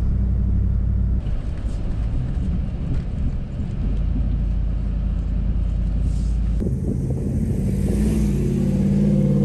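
Ram Power Wagon pickup's V8 engine pulling a loaded trailer through deep sand. It is first a low, steady rumble heard inside the cab, then heard from outside as the truck approaches, the engine note growing louder near the end.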